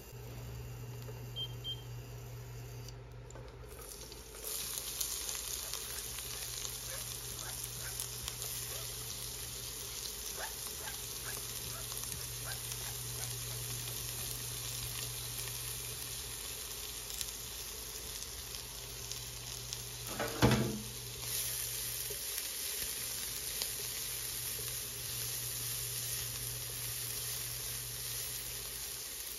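Chopped red onion and garlic sizzling in hot oil in a non-stick wok, stirred with a silicone spatula, the sizzle setting in a few seconds in and running on steadily. A steady low hum lies underneath, and there is one brief clatter about two-thirds of the way through.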